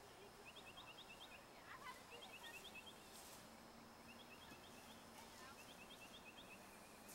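Faint, high chirping in quick bursts of four or five notes, repeating every one and a half to two seconds, four times. A short falling whistle comes about two seconds in.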